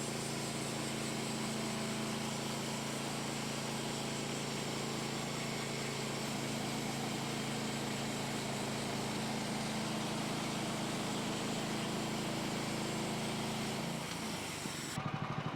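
Portable bandsaw sawmill's gasoline engine running steadily under load as the band blade cuts through a red oak log. About fourteen seconds in the engine note drops. It settles into an even pulsing as the cutting hiss stops, the engine throttled back at the end of the cut.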